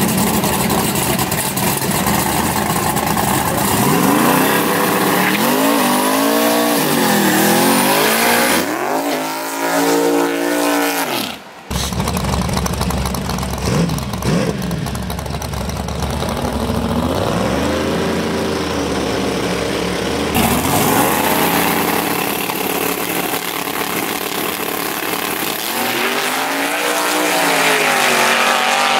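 Drag-racing engines, the twin-turbocharged small-block Chevy V8 of a Chevrolet pickup and a Camaro's V8, revving up and down in pitch several times. Between the revs they run loud and steady at high power, as in a launch and pass down the strip.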